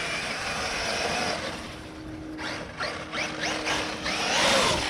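Traxxas RC car's electric motor whining as it speeds up and backs off several times, with tyres churning through dirt, the rushing noise loudest near the end.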